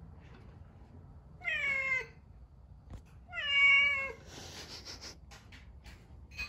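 A calico house cat meowing twice, the second meow louder and longer, each dropping in pitch at the end: begging for food at the table. A few soft rustles and clicks follow.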